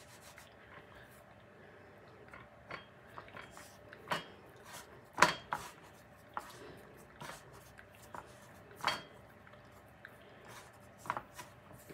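Kitchen utensils and dishes clinking and knocking on a countertop: a handful of separate sharp knocks, some with a short metallic ring, the loudest about five seconds in.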